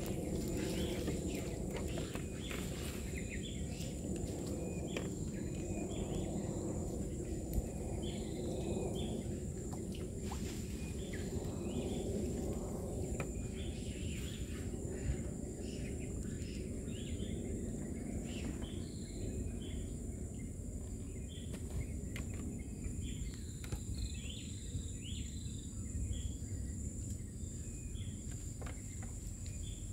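Tropical forest ambience: a steady high insect drone with many short chirps scattered throughout, over a low steady rush, with a few faint clicks.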